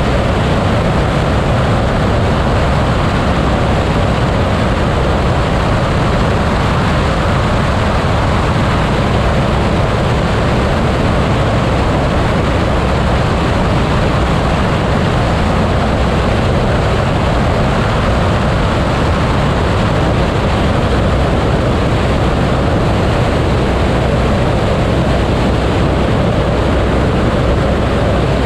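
Altus motorglider in flight: a loud, steady rush of air with a low drone beneath it.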